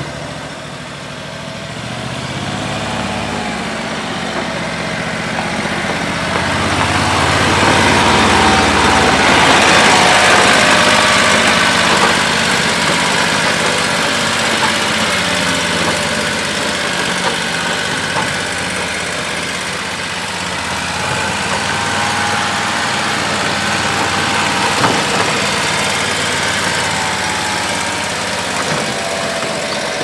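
John Deere six-wheel Gator utility vehicle's engine running as it drives along, loudest as it passes close about ten seconds in, its engine note wavering up and down.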